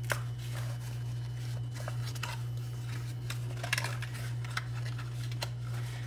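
Kraft card stock being folded by hand into a box: light rustles, taps and scrapes of the card over a steady low hum.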